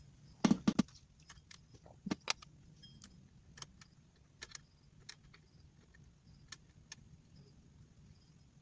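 Small metal parts clicking and clinking as a nut and washer are fitted by hand onto the front drive pulley shaft of an automatic scooter's CVT. A quick cluster of louder clicks comes about half a second in and another just after two seconds, then only sparse light ticks.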